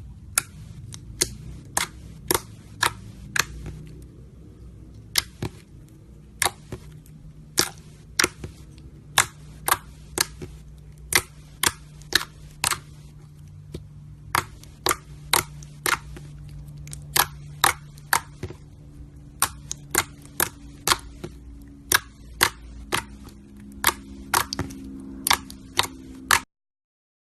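Slime being squeezed and pressed, giving sharp popping clicks at about one to two a second as trapped air bursts, over a faint low hum.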